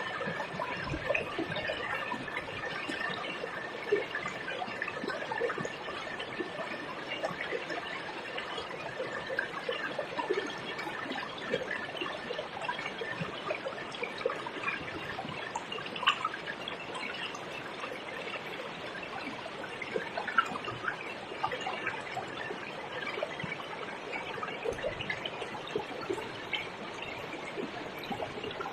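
River water trickling steadily, with many small splashes and drips.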